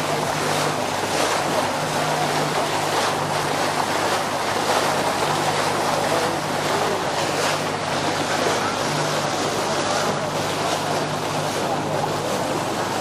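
Passenger motor launch under way: a steady engine hum under the rush of water along the hull, with wind buffeting the microphone.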